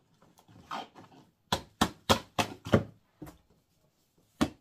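Cardboard advent-calendar drawer slid and knocked shut by hand: a short scrape, then a quick run of five knocks and one more near the end.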